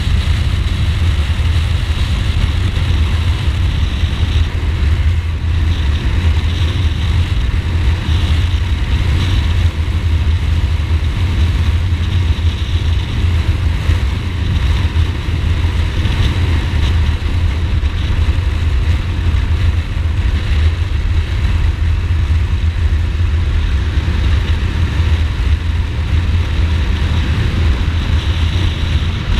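Ducati Multistrada motorcycle engine running steadily at riding speed, a deep rumble under a constant rush of wind on the microphone.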